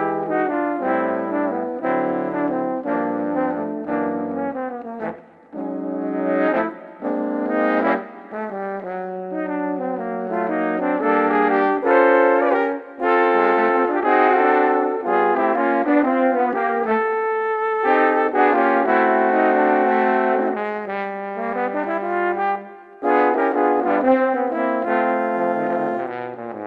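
Instrumental background music, with several melody lines over a bass line that moves in steps, and short breaks between phrases about five seconds in and again near the end.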